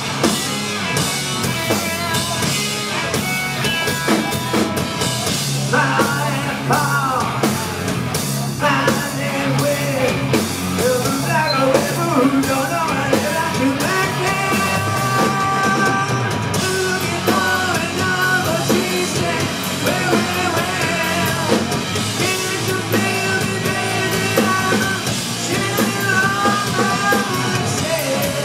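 Live rock band playing: drum kit, electric guitar and bass, with a male lead vocal coming in about six seconds in.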